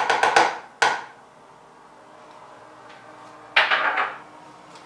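Metal potato masher knocked a few times against a wooden bowl, with a sharper single knock just under a second in, then a short louder clatter about three and a half seconds in.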